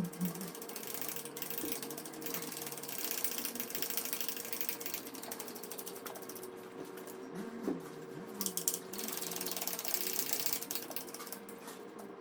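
Hand socket ratchet clicking in quick runs as a bolt is worked loose.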